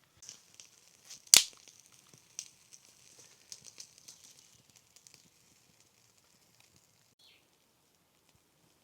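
Rustling and crackling with scattered small clicks and one sharp crack a little over a second in, dying away by about halfway.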